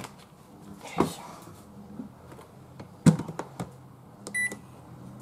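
Toshiba rice cooker's lid snapping shut with a sharp click about three seconds in, followed a second later by a short electronic beep from its control panel. A softer knock comes about a second in.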